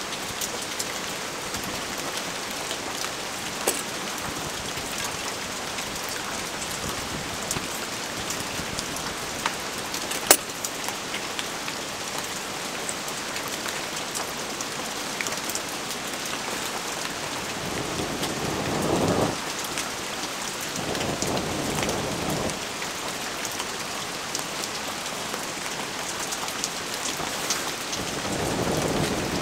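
Steady rain pattering, full of fine drip-like ticks, with one sharp click about a third of the way in. Three times, about two-thirds through and again near the end, long breaths are blown into a small wood-burning stove to get damp kindling to catch.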